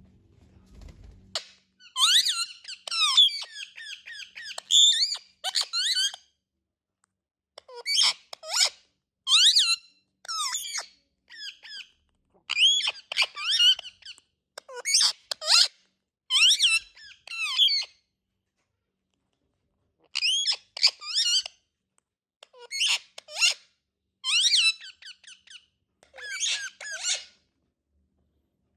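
Indian ringneck parakeet calling: high chirps and squeaks that glide quickly up and down, in short bouts with brief pauses between them.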